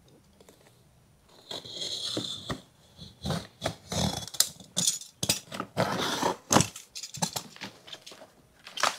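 Utility knife slitting the tape and paper wrapping along the seam of a cardboard box: a scratchy cutting sound in irregular strokes, with sharp knocks and scrapes as the box is handled.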